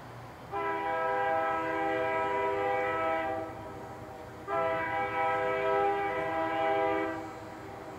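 Diesel locomotive air horn sounding two long blasts of about three seconds each, a chord of several notes, as the train approaches. This is the grade-crossing warning.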